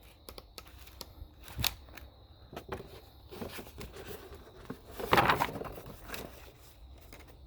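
Handling noise from an opened electrical plug and extension cord being turned over in the hands: scattered small clicks and rustles, with a louder brief scrape about five seconds in.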